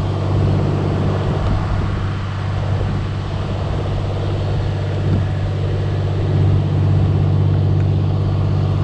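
Steady low mechanical hum of a water pump running.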